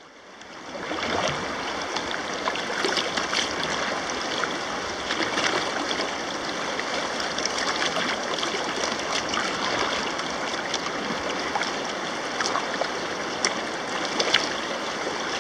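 Fast river current rushing through a shallow riffle, a steady noise of moving water that swells up over the first second and then holds even.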